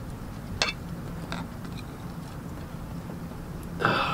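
Two light clicks as the lower-unit drain screw is worked loose from an outboard's gearcase, over a low steady hum. A short pitched sound comes near the end.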